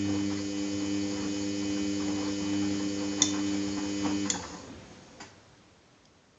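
Samsung front-loading washing machine humming steadily with a rush of water, which stops about four seconds in; sharp clicks, about three in all, come around the stop, the switching between stages of the wash cycle.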